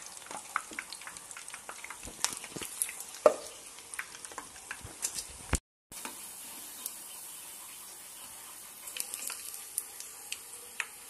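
Hot oil sizzling around milk buns deep-frying in a pan, with sharp clicks and scrapes of a metal slotted spoon against the pan. The sound cuts out briefly a little past halfway, then the sizzle resumes more evenly, with more clicks near the end.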